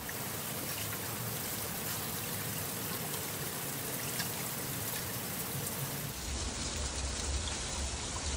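Water-based capping agent sloshing inside a Yamaha 600 motorcycle fuel tank as the tank is rocked to flush and coat its inside, a steady watery noise that gets heavier about six seconds in.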